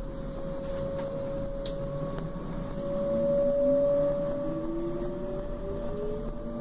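Class 425 electric multiple unit's traction converters whining, heard from inside the train: a steady high tone with a second, lower tone that rises in pitch from a few seconds in as the train gathers speed, over a steady running rumble.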